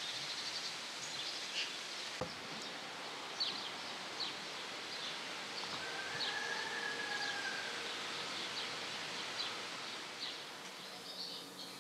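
Outdoor rural ambience: a steady soft hiss with scattered short, high bird chirps, and one drawn-out faint tone a little past the middle.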